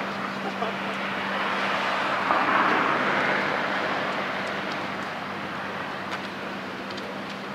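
Vehicle noise, a rushing sound that swells to a peak about two and a half seconds in and fades slowly, over a steady low hum.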